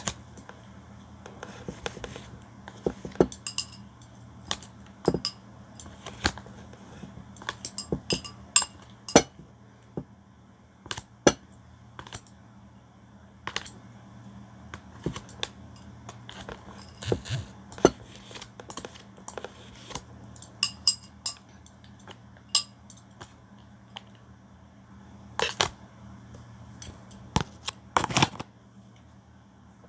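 Mukbang eating sounds: plastic chopsticks clicking and scraping against a plastic food container as rice noodles are picked up, with chewing. The clicks come irregularly, in small clusters, over a steady low hum.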